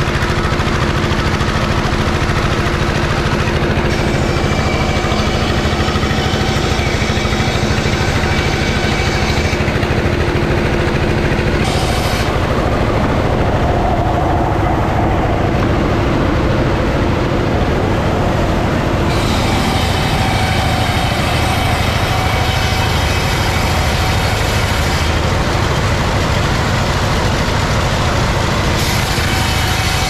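Sawmill machinery running loud and steady: a power-driven circular saw bench cutting planks. The hiss on top of the steady machine noise fades and returns a few times.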